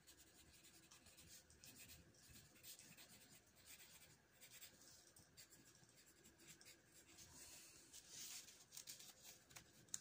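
Faint scratching of a pen writing on paper, in near silence.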